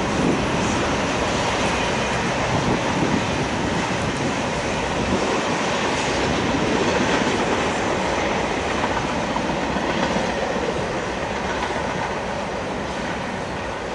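Double-stack intermodal container train on TTX well cars rolling past: a steady, loud noise of steel wheels running on the rails, slightly quieter near the end.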